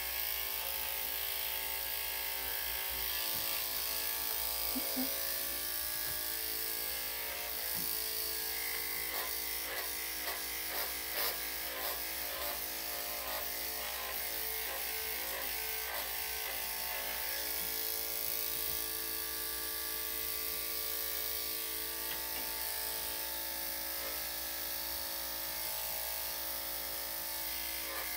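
Electric dog clippers fitted with a #7 blade running, a steady electric hum as they shave through a small dog's coat.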